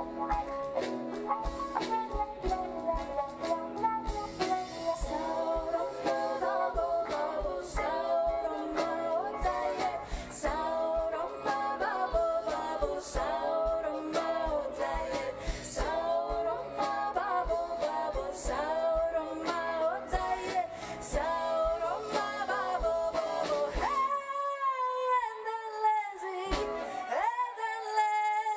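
Live band music with drums and a hollow-body electric guitar taking a solo. About 24 seconds in the band drops out and a woman sings alone, holding long wavering notes.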